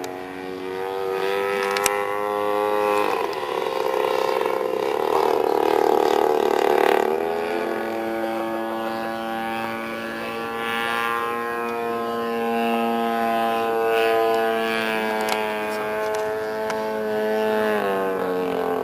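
Gasoline engine of a 1/3-scale Aeronca Champ radio-controlled model plane running, its pitch rising and falling. It is loudest and roughest between about three and seven seconds in, and drops in pitch near the end.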